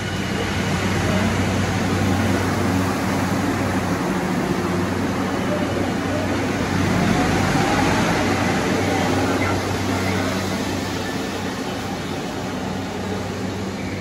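Rubber-tyred Mexico City Metro Line 2 train running, heard from inside the carriage: a steady rushing rumble with a low hum, and a faint rising whine about halfway through.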